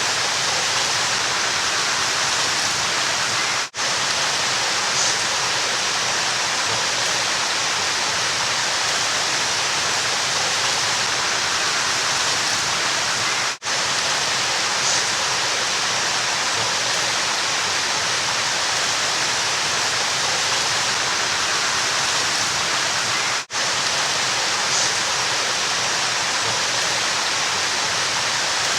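River water rushing steadily, an even, continuous wash of noise. It cuts out for a split second three times, about ten seconds apart.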